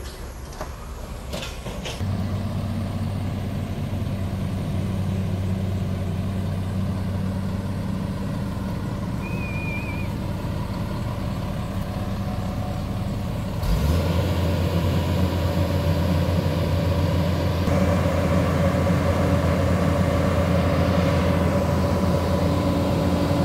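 Diesel engine of a JCB tracked excavator running with a steady low hum. It gets louder in two sudden steps, about two seconds in and again about fourteen seconds in.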